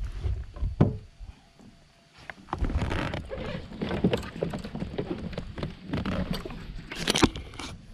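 Knocks, bumps and scuffs of a person shifting about on a plastic sit-on-top fishing kayak while leaning over the side. There is a thump about a second in, a busy run of small knocks from about two and a half seconds, and a sharp knock near the end.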